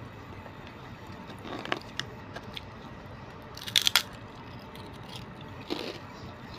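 Crunchy bite into a piece of chicharon (deep-fried pork crackling): a quick cluster of loud, crisp cracks about four seconds in, with a few softer clicks before it and a quieter crunch near the end.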